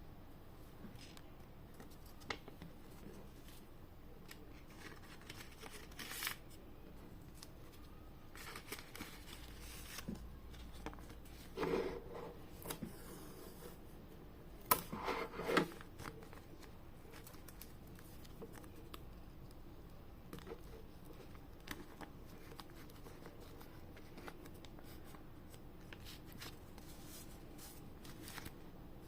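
Hands packing parcels: scattered clicks and rustles of packaging being handled and cut, with a few louder short scraping bursts around the middle.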